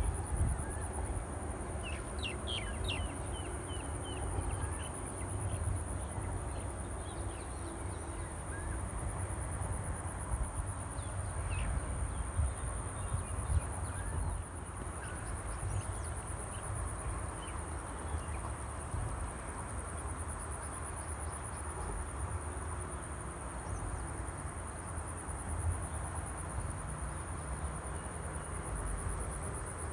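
Steady, high-pitched insect drone, like crickets or cicadas, with a few brief bird chirps about two to three seconds in and again near the middle, over a low rumble.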